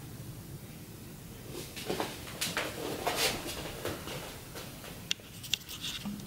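Large paper poster sheet rustling as hands handle it and let it go, followed by a few light clicks about five seconds in.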